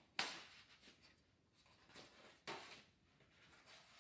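Sheets of UART 400-grade sanded pastel paper being handled and laid down on foam core board: a brief paper rustle just after the start, the loudest sound, and another about two and a half seconds in, each fading quickly.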